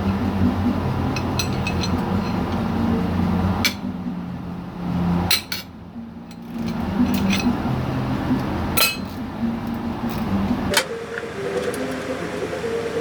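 Metal hand tools clicking and clinking against engine parts, a handful of sharp separate taps, over background music.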